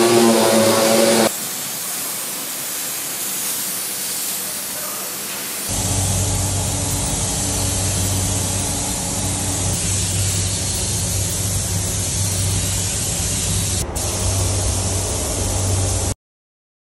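Compressed-air paint spray gun hissing in a spray booth, with a steady low hum underneath that grows louder about six seconds in. It all cuts off suddenly near the end. A louder sound with steady tones fills the first second.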